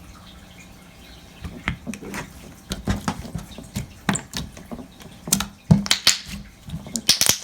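Clear slime being squeezed and poked by hand, giving irregular sticky clicks and pops from air bubbles trapped in it, starting about a second in.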